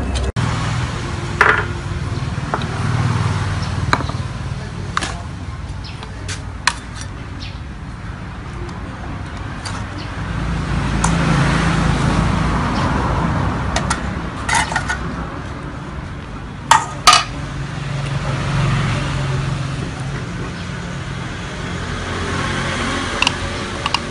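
Scattered sharp clinks and knocks of metal cooking utensils against cans and a plate, over a low rumble that swells and fades twice.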